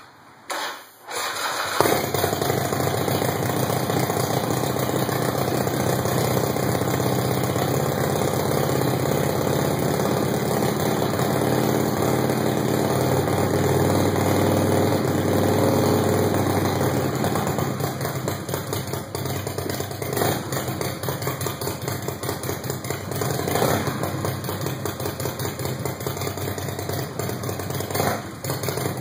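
1987 Harley-Davidson Sportster's Evolution V-twin (an 883 bored to 1200, with an S&S Super E carburettor and Bassani exhaust) cranking briefly on the starter from cold and catching within about two seconds. It then runs at a steady, raised idle. After about seventeen seconds it settles to a lower, lumpier idle with a few short revs.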